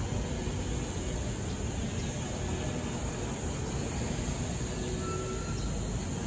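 Steady low rumble of distant city traffic under an even high hiss.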